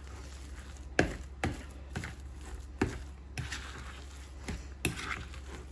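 A fork mixing mashed potato in a bowl, its tines knocking against the bowl about seven times at an uneven pace.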